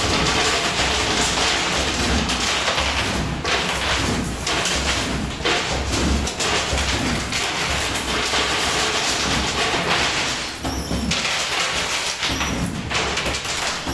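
Coin pusher arcade machine running: a dense, loud clattering din of coins and machine noise with thuds, dipping briefly twice near the end.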